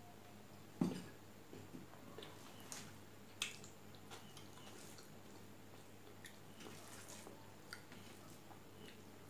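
Quiet mukbang eating sounds of rice and fish curry eaten by hand: a thump about a second in and a sharp clink at about three and a half seconds, then small wet clicks of chewing and fingers mixing rice on a steel plate.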